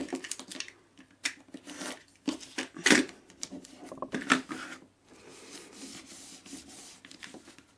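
Self-adhesive book-covering foil being cut and handled, with a few separate sharp snips and crackles. About five seconds in, these give way to a soft steady rustle.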